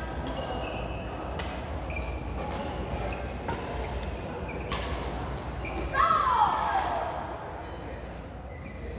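Badminton play in a large sports hall: several sharp taps of rackets striking a shuttlecock and shoes on the court, over a murmur of echoing voices, with a louder falling cry about six seconds in.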